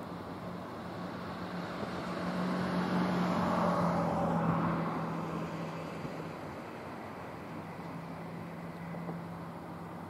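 A road vehicle passing by, its noise swelling to a peak over a few seconds and then fading, over a steady low hum.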